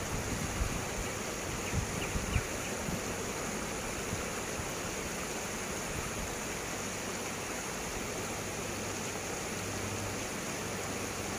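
Steady rushing wind noise on the microphone, with a few low buffeting thumps in the first two seconds or so and a faint low hum underneath later on.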